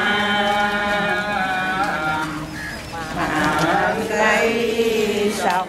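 Buddhist devotees chanting in unison, drawing out long held notes in two phrases with a short break between them.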